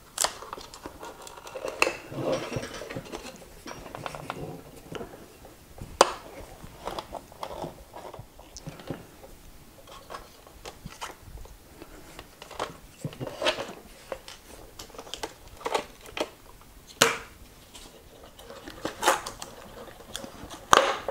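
Screwdriver and small parts clicking and clattering against the plastic shell and the controller housing of a Gotway MTen3 electric unicycle being taken apart: irregular light clinks, with sharper knocks about six seconds in and twice near the end.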